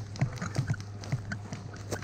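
Running footsteps on a pine-needle forest floor: irregular thuds with gear rattling and twigs and needles crackling, over a steady low hum, and a sharp snap near the end.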